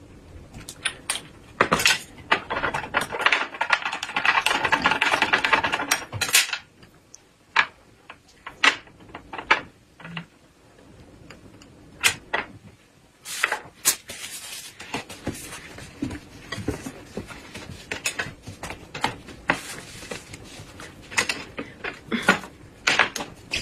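Light clicks and clatter of dishes and food being handled at a table, with a stretch of crackling rustle from about two to six seconds in.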